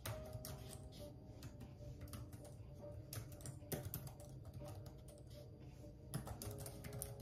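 Typing on a computer keyboard: quick, irregular key clicks, with faint music underneath.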